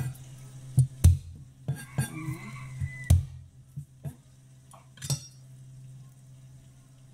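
Kitchen knife chopping garlic on a wooden cutting board: irregular sharp knocks, several in the first three seconds, then two more spaced out and fainter.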